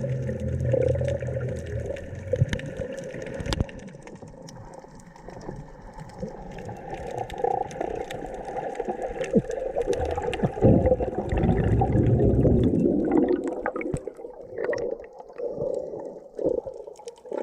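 Underwater sound of a scuba diver's exhaled bubbles from the regulator, muffled rumbling and gurgling bursts, one near the start and a longer, louder one around the middle, with scattered clicks and crackles between.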